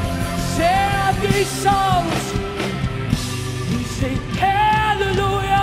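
Live rock band playing, with electric guitars and keyboard under a male lead vocalist singing two long phrases of held, wavering notes, one starting about half a second in and another about four and a half seconds in.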